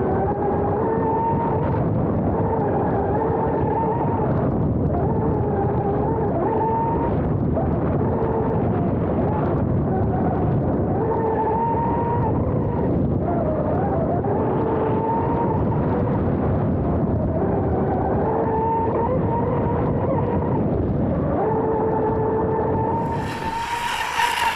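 Brushless electric outboard motor of a fast-electric RC F1 tunnel boat whining at speed over a rush of water and wind, its pitch holding for a second or two, then stepping up or dipping as the throttle and turns change. Near the end the sound switches abruptly to a louder, brighter hiss.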